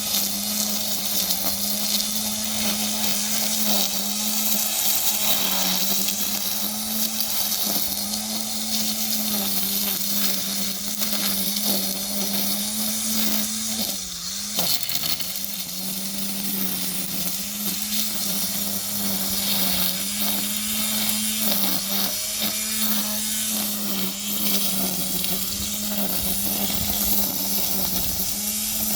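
DeWalt 20-volt XR 13-inch cordless string trimmer running on its high speed setting: a steady electric motor hum with the line whipping, the pitch wavering a little now and then and sagging briefly about halfway through.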